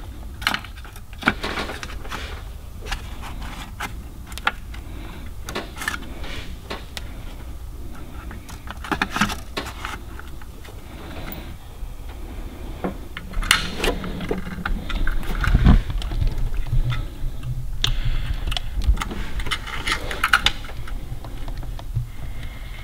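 Small metallic clicks, clinks and rattles of a replacement ignition coil, its wire terminals and the cap hardware being handled and pushed into place in an HEI distributor cap, with some heavier knocks and rubbing about two-thirds of the way in.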